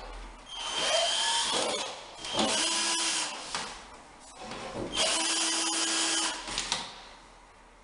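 Cordless drill running in three bursts as it works into a wooden corbel, each burst a steady whine. The motor winds up at the start of the first.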